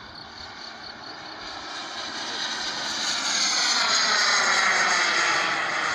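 Radio-controlled model jet making a fly-by: its high engine whine swells to a peak about four seconds in, then drops in pitch as it passes and moves away.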